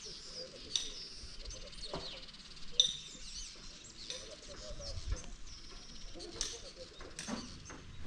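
Small birds chirping, with many short high calls that slide up and down in pitch.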